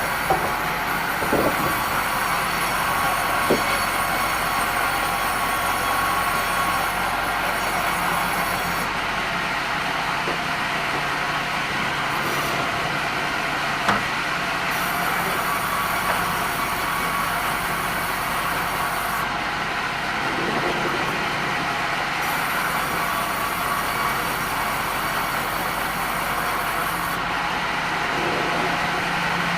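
Sawmill band saw running steadily through red meranti timber: a continuous machine hum and blade hiss, with a few sharp knocks and the highest hiss cutting out and returning several times.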